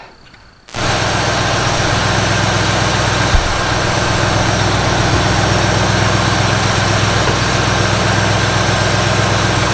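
Ford 302 V8 idling steadily, cutting in abruptly about a second in, with its ignition timing just set right on. One short thump about three seconds in.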